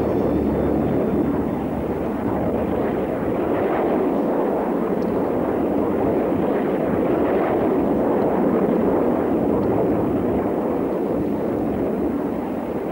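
Jet engines of a B-2 flying-wing bomber in flight, heard from the ground as a steady, even jet noise without rising or falling.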